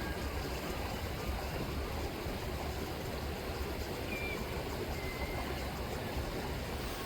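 River water rippling and flowing steadily, with two faint, short gull calls about four and five seconds in.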